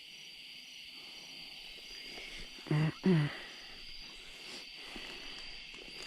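Insect chorus, a steady high-pitched trilling that carries on throughout. About three seconds in, a short two-part human voice sound cuts in briefly.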